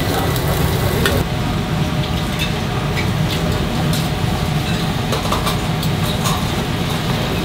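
Meat sizzling and fire crackling on a charcoal grill for about the first second. Then a chef's knife taps and slices on a cutting board as seared pork is cut into strips, in short scattered clicks over a steady low kitchen rumble.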